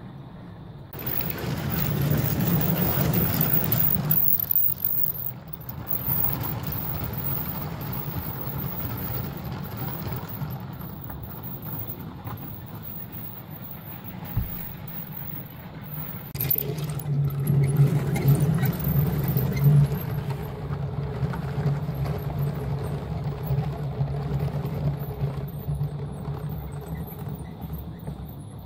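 LEGO trains running on plastic LEGO track: a steady electric-motor hum with the rumble of wheels. It grows louder twice, about a second in and again about seventeen seconds in, as trains pass close by.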